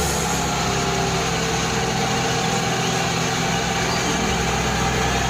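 Truck engine idling steadily, with an even low rumble that does not change in pitch or level.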